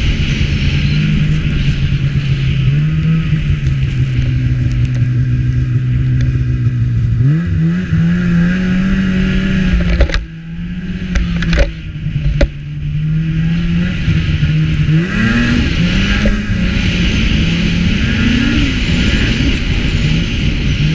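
Snowmobile engine running under way, its pitch climbing as the throttle opens about seven seconds in and again near fifteen seconds. Around ten seconds it eases off briefly, with a few sharp knocks.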